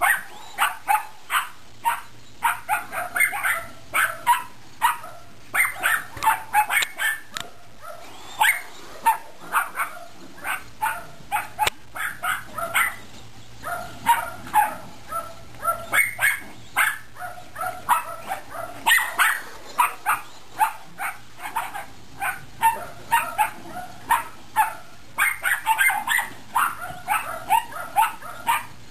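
Dogs barking rapidly and repeatedly in long runs, several barks a second, with a few short pauses.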